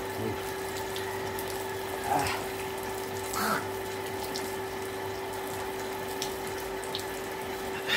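Water running steadily from a pump-fed tap, with a steady motor hum underneath. Two brief short sounds stand out, about two and three and a half seconds in.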